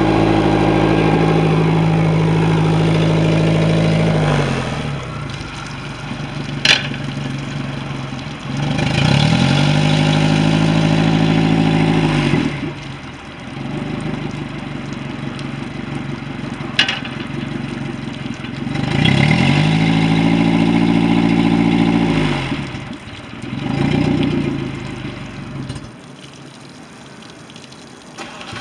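Suzuki 150 outboard motor running on a flushing hose with its propeller spinning, the test run after a lower-unit replacement: it idles, is revved up and back down a few times, and two sharp clacks come in the quieter stretches.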